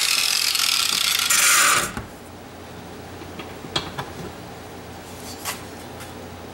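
Power grinder grinding steel off the heavy end of a high-lift mower blade to bring it into balance: a steady grinding hiss that stops about two seconds in. A few light metallic clicks and taps follow.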